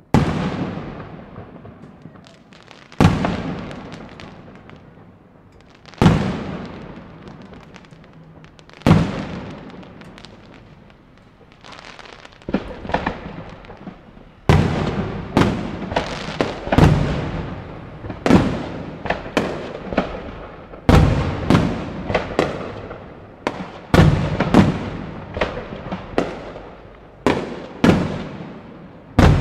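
Aerial fireworks shells bursting, each a sharp bang trailing off in a long echoing rumble. At first they come about three seconds apart; about halfway through, the pace picks up to a rapid run of bangs with crackling.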